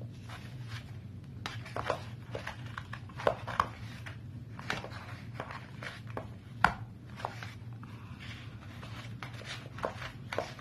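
Scissors cutting into a paper-pulp egg tray: irregular snips and crunches of varying loudness, one sharp snip about two-thirds of the way through. A low steady hum runs underneath.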